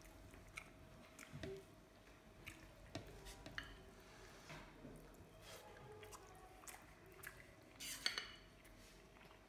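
Fingers mixing cooked rice with daal and curry on a plate: faint soft squishing with scattered light clicks of fingertips against the plate, and a louder cluster of clicks about eight seconds in.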